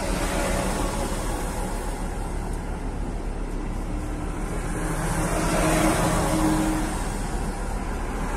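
Road noise heard from inside a moving car on a wet road as a column of six-wheeled KamAZ army trucks drives past in the other direction. About five seconds in, a close truck's engine hum and tyre hiss on the wet tarmac swell louder for a couple of seconds, then ease off.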